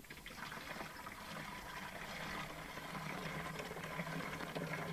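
Sugared EM solution pouring from a plastic basin into a plastic watering can, a faint steady flow of liquid filling the can.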